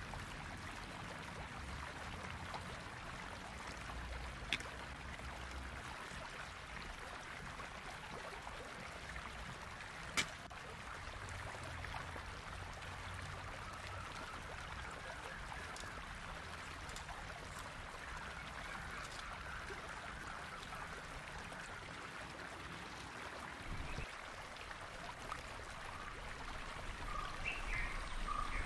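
Steady rushing of a nearby stream, with two short sharp taps, one about four seconds in and one about ten seconds in.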